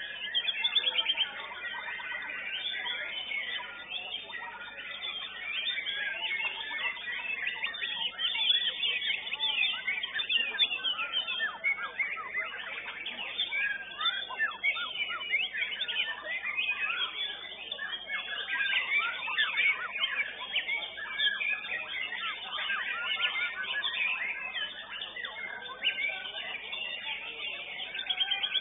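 White-rumped shama (murai batu) song: a dense, unbroken stream of rapid whistles, warbles and chattering notes.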